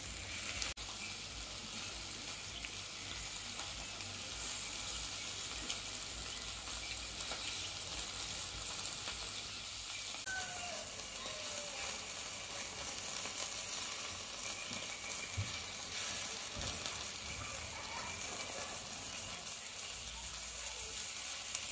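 Steady high hiss of food sizzling over a charcoal grill.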